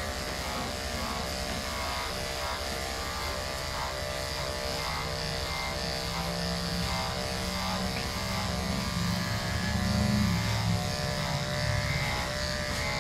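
Andis AGC two-speed electric dog clipper with a 10 blade buzzing steadily as it shaves through thick, coarse coat. It grows a little louder around ten seconds in.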